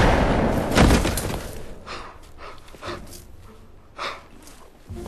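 A gunshot about a second in, ringing away over a second, followed by a few faint knocks.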